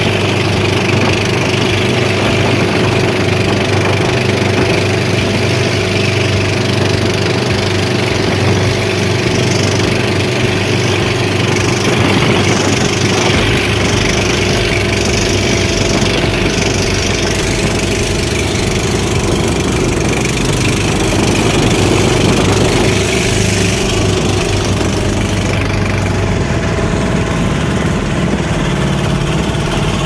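Motor engine running steadily at a constant speed. Its low rumble grows stronger about halfway through.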